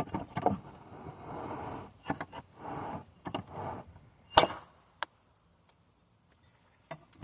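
Hand file being pushed across chainsaw chain teeth in a few short strokes, then a single sharp metallic clink about four seconds in.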